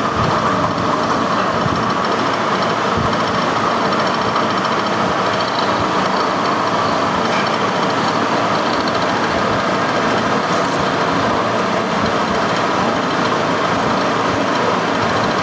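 Metalworking machine running steadily: a continuous, even mechanical noise with no breaks.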